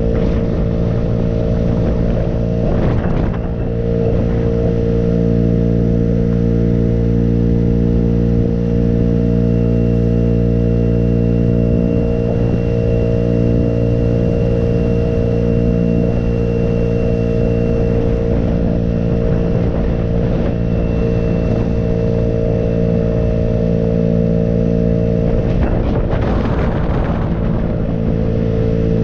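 A road vehicle's engine running at steady revs while cruising, under an even rush of road and wind noise, with brief louder rushes of noise about three seconds in and again near the end.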